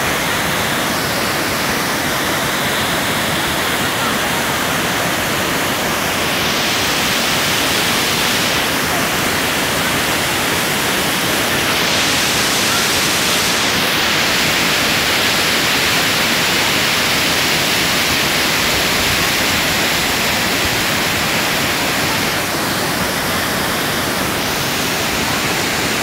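Waterfall pouring onto rocks: a loud, steady rush of falling water and spray.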